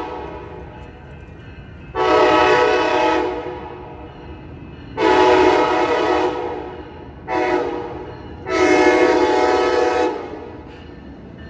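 Amtrak Capitol Corridor passenger train's air horn blowing four blasts, long, long, short, long: the standard grade-crossing signal. A steady low rumble of the passing train runs underneath.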